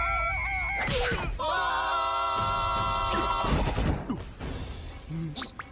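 Cartoon larva characters' wordless voices: two long, high, wavering cries in the first half, then a few short knocks and crashes.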